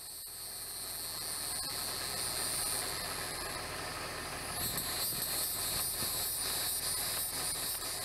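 Chorus of insects, a steady high-pitched buzzing trill that swells louder about halfway through.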